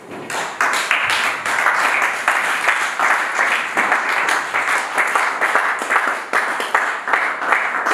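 Congregation applauding, a dense clatter of many hands that starts abruptly just after the beginning.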